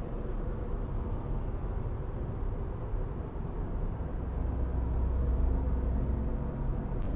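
Road and engine noise inside a car's cabin at highway speed: a steady low rumble that grows a little louder after about four seconds.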